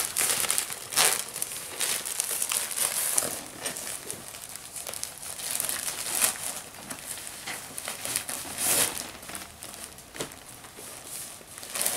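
Plastic wrapping on a pack of disposable diapers crinkling and rustling in irregular bursts as the pack is handled and packed.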